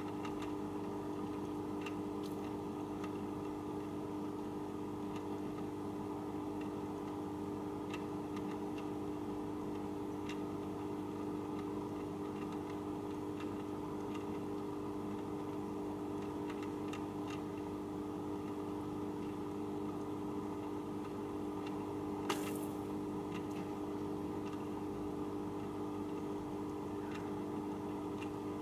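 JBL CristalProfi e1901 aquarium canister filter running with a steady motor hum and scattered faint irregular ticks, with one sharper click about three quarters of the way through. This is the weird noise the owner is showing.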